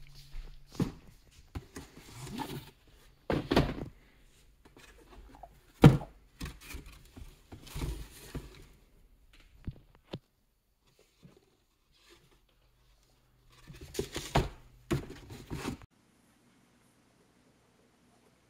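Cardboard shoeboxes being shifted and opened by hand: irregular thunks, knocks and rustling, the loudest thump about six seconds in. It goes quiet for the last couple of seconds.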